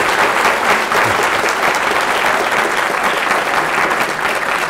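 A crowd applauding steadily with dense, sustained clapping.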